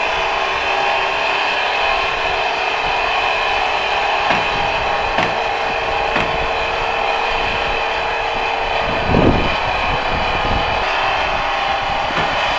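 Log-sawing rig cutting a large log: a steady mechanical drone of the saw in the wood, with a few knocks. The loudest thump comes about nine seconds in, where the low steady tone stops.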